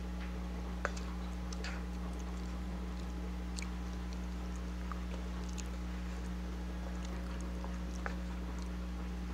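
Someone eating a spicy noodle dish, with soft chewing and a few scattered small clicks, over a steady low hum.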